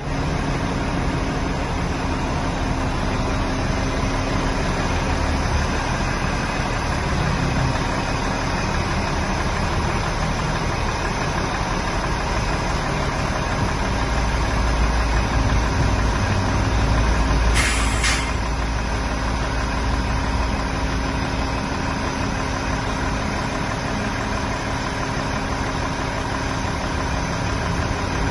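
Volvo A35F articulated hauler's D13 six-cylinder diesel running steadily as the dump body is hydraulically raised, the engine getting deeper and a little louder partway through. A short hiss comes about two-thirds of the way in.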